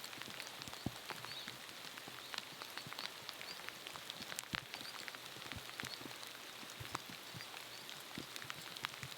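Light rain falling steadily, a soft hiss dotted with irregular ticks of single drops landing close by.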